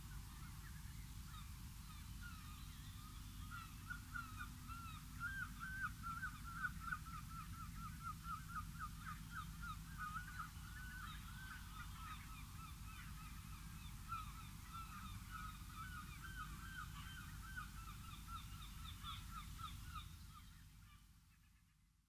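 Many birds calling at once in short, rapid, overlapping notes over a steady low background rumble, fading out near the end.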